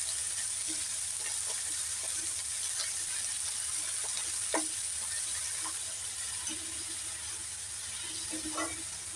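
Chopped mustard greens sizzling in hot oil in a kadhai, stirred with a metal spatula that scrapes and knocks against the pan now and then.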